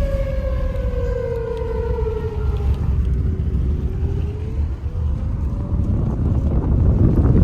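Outdoor tornado warning siren wailing, its pitch sliding slowly down, then rising again before it fades about six seconds in. Heavy wind noise on the microphone runs under it and grows louder near the end.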